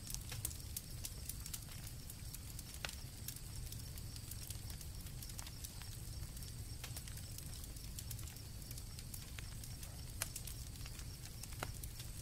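Campfire crackling, with irregular sharp pops over a steady low rumble, and crickets trilling continuously at a high pitch.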